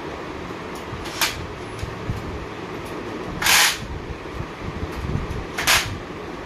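Cordless drill-driver run in three short bursts on the bicycle's handlebar fittings, the middle one the longest and loudest at about a third of a second, over a steady background hum.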